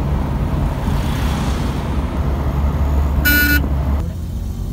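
A car moving along a road, heard from inside the cabin: steady engine and road rumble, with one short horn beep about three seconds in. The hiss drops away about four seconds in, leaving the low rumble.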